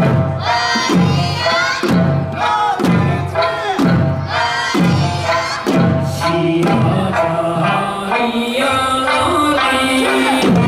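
Okinawan eisaa folk song with singing, loud and steady, accompanied by drum beats about once a second that give way about six seconds in, leaving the singing and held notes.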